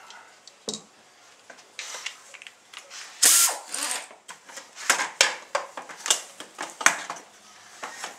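Handheld pneumatic tool on an air hose fired in short bursts, each a sharp hiss of air, the loudest about three seconds in and several more a couple of seconds later, with small clicks and knocks between.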